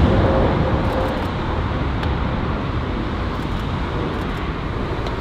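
Jet airliner's engine noise, a loud steady rumble that slowly fades.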